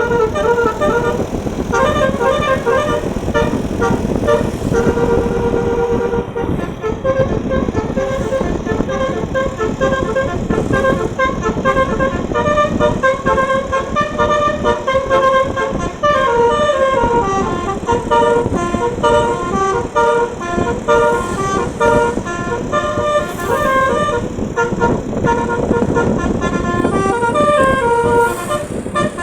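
A bus's telolet basuri multi-tone air horn playing tunes continuously, its notes stepping up and down in melody over engine and road noise.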